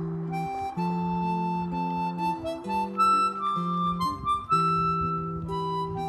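Background music: a harmonica playing a slow melody of held notes over a chordal accompaniment, with an acoustic guitar also heard.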